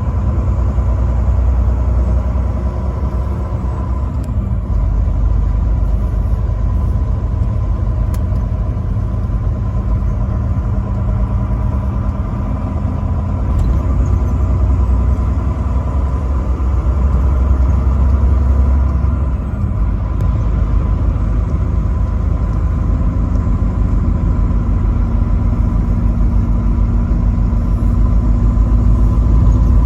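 Truck engine and road noise while driving: a steady low rumble with a thin steady whine above it.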